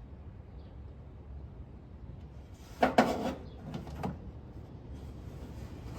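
A short cluster of sharp clicks and knocks about three seconds in, with two lighter knocks just after, over a low steady hum: parts or tools being handled during the alternator fitting.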